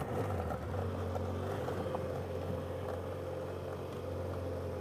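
BMW F800GS parallel-twin engine running steadily at low speed as the motorcycle is ridden slowly along a gravel track.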